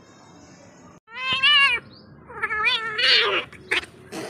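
Cats fighting: a wavering yowl about a second in, then a longer, warbling yowl, followed by short harsh hissing bursts near the end.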